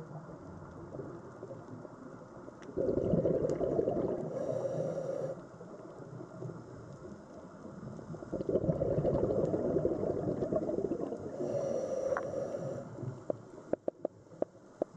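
Scuba diver's exhaled bubbles from the regulator, two long bubbling rushes a few seconds apart over a low underwater hum, with a few sharp clicks near the end.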